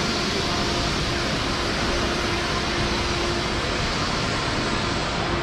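Steady background noise of a busy railway station concourse: an even hum and hiss from the large hall and its crowd, with no single sound standing out.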